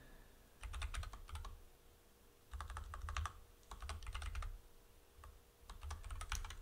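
Computer keyboard typing in four short bursts of keystrokes with pauses between them.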